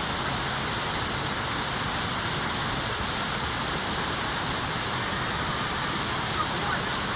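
Steady rushing of the Venta Rapid (Ventas rumba), the wide, low waterfall on the Venta river, pouring at an even level.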